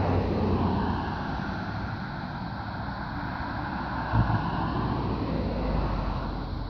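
A car passing close by on the road, its tyre and engine noise swelling and dropping in pitch over the first second, then a steady rumble with a brief thump about four seconds in.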